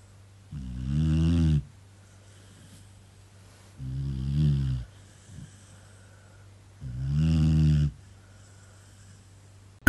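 Snoring: three slow snores about three seconds apart, each lasting about a second, with quiet breathing gaps between them.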